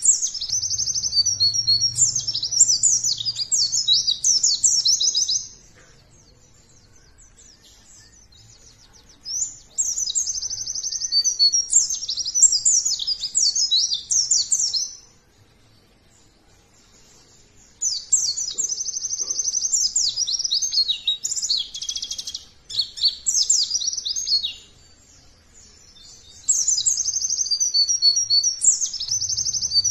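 White-eye (pleci) singing: fast, high, twittering song in four bouts of a few seconds each, separated by short pauses. It is a lure song meant to set other white-eyes singing.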